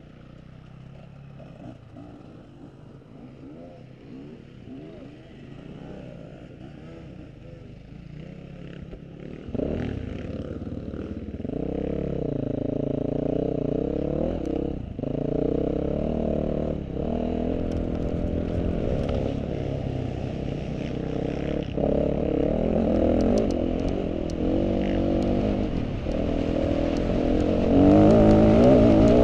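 Off-road motorcycle engine running and revving, its pitch rising and falling as the throttle is worked. It grows much louder about ten seconds in, with a few sharp knocks near the end.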